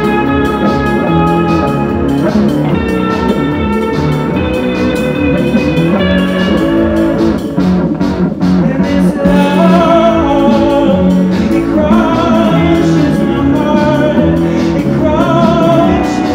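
Live band playing: electric guitar and keyboard over a steady beat, with a singer's voice coming in about halfway through.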